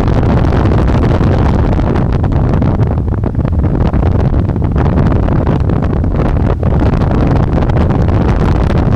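Heavy, steady wind buffeting on the microphone from riding an electric bike at speed, a loud low rumble that covers any other sound.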